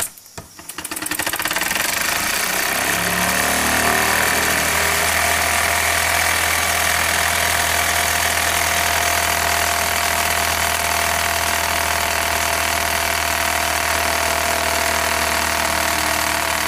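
Jensen 60 toy steam engine picking up speed over the first couple of seconds, then running fast and steady at full steam.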